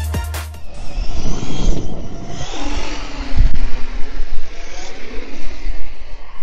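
Arrma Kraton 4S RC monster truck's brushless electric motor whining and revving as the truck is driven and jumped on dirt, under heavy wind noise on the microphone, with one thump about three and a half seconds in. The tail end of electronic intro music cuts off in the first second.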